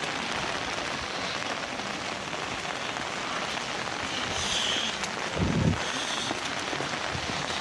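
Steady heavy rain falling on wet stone paving, with a brief low thump a little over five seconds in.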